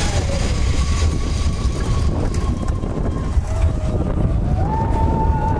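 Mine-train roller coaster running along its track: a steady low rumble of the cars and wheels, with wind buffeting the microphone. Thin, drawn-out wheel squeals ride over it, one held for a couple of seconds early on and another rising in pitch from a little past the middle.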